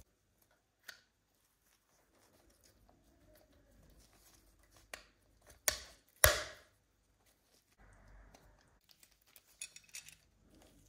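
Small plastic and metal parts of a diecast model car clicking and tapping as they are handled, with two loud sharp snaps about half a second apart near the middle as a part is pressed into the plastic chassis.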